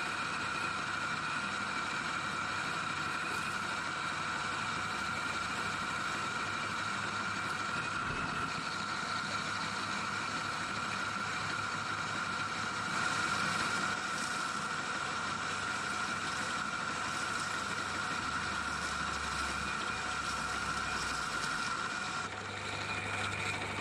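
Metal lathe running while a parting tool cuts into a spinning 3-inch mild-steel pipe, parting it off. The cut gives a steady high-pitched whine that drops away near the end.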